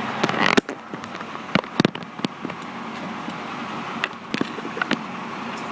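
Fire engine running, a steady rumble with a quick series of sharp clicks and knocks over it, most of them in the first two seconds.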